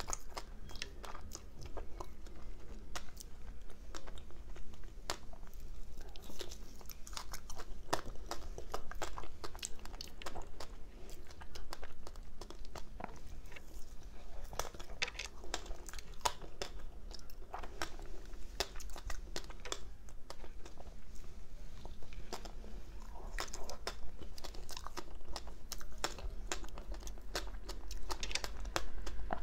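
Biting and chewing frozen ice coated in matcha powder: a long run of irregular crunches and crackles as the ice breaks between the teeth.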